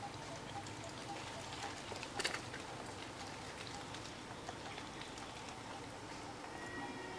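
Outdoor ambience: a steady hiss with scattered small crackles and ticks like patter, a louder burst of crackling about two seconds in, and a faint regular peep about twice a second.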